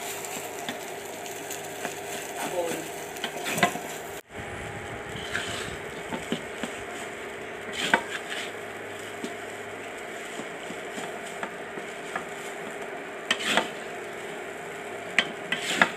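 Fried rice sizzling in a metal wok while a wooden spatula stirs it, scraping and knocking against the pan at irregular moments over a steady frying hiss.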